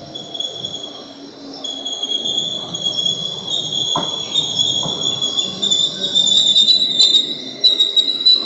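TILO ETR 524 electric multiple unit (a Stadler FLIRT) pulling into a platform and slowing to a stop. The train gives a high-pitched squeal over a low rumble, growing louder as it draws alongside, with a single click about halfway through.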